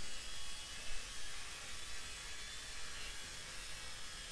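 Faint steady hiss with a faint hum, with no clear grinder whine.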